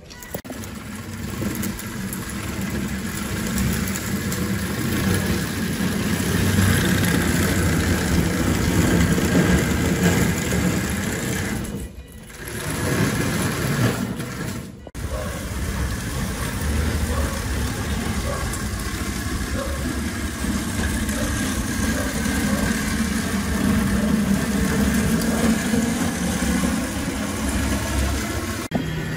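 Small electric drive motors whining and tracks rattling as a homemade tracked Wall-E-style robot drives along, with two brief breaks in the sound about halfway through.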